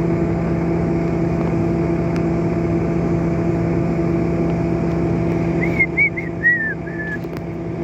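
Steady drone of a vehicle's engine and road noise, with a constant low hum. About six seconds in come a few short high chirps.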